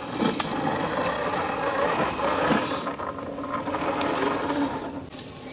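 Electric motor and gearbox of a radio-controlled scale Mercedes G-Class crawler whirring as it drives over rocks and dry leaf litter, with scattered clicks and crunches from the tyres; it fades about five seconds in.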